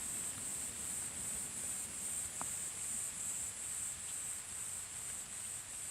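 Insects trilling in a high buzzing chorus that pulses about three times a second.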